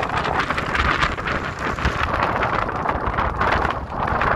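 Tropical-storm wind buffeting the microphone in gusts, over heavy surf breaking.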